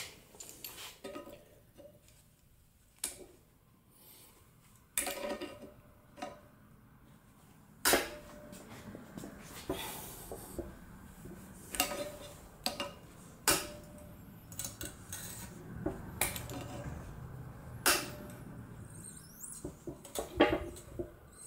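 Metal hand tools clinking and knocking against a cast-iron exhaust manifold as a heated, seized stud is gripped and worked with vise grips. The sharp metallic clinks are scattered, with a faint steady hiss under them from about eight seconds in.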